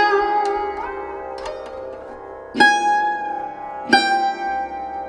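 Instrumental background music on a plucked string instrument: separate plucked notes, some sliding up or down in pitch after the attack.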